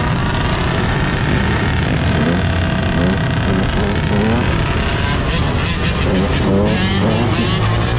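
A pack of dirt bikes and motorcycles running and revving, several engines rising and falling in pitch at once, with more revving in the second half.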